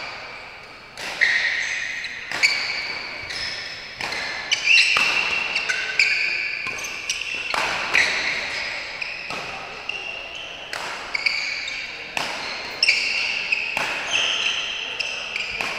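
Badminton rally: rackets striking the shuttlecock over and over, a sharp hit about every second, with sneakers squeaking on the court floor between hits. The hits echo in a large hall.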